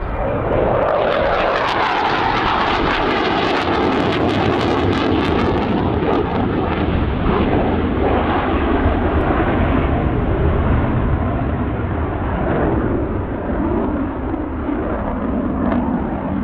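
Saab 35 Draken jet fighter flying past with its afterburning turbojet (Volvo Flygmotor RM6, a licence-built Rolls-Royce Avon) in afterburner: loud, continuous jet noise with a harsh crackle for the first several seconds. The crackle then fades and the noise goes on duller as the jet draws away.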